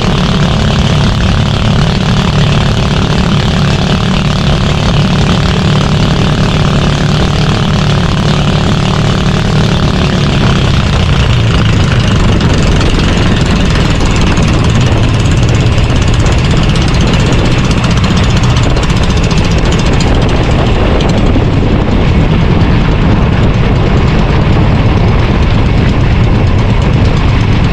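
Fishing bangka's engine running steadily under way, loud, with a continuous rushing noise over it. Its pitch holds steady, then blurs and wavers from about ten seconds in.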